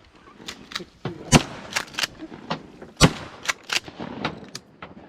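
Shotgun fire at ducks: two loud blasts about a second and a half apart, with several fainter, sharper reports among them.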